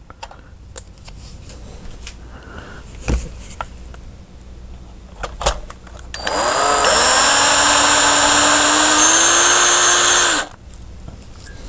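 Small electric drill with a 3/32-inch bit boring out the broken axle stub of a diecast model car. It runs for about four seconds, its whine rising slightly in pitch, then stops abruptly. Before it come a few light clicks and knocks from handling the parts.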